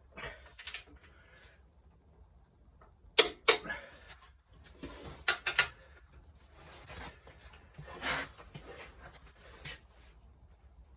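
Hand tools and metal suspension parts being handled during reassembly: irregular knocks, clanks and short scrapes, the loudest a pair of sharp knocks about three seconds in.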